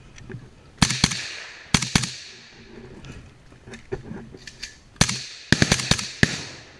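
Small-arms gunfire, echoing: two quick pairs of loud shots, a few fainter scattered shots, then a rapid string of about six shots near the end.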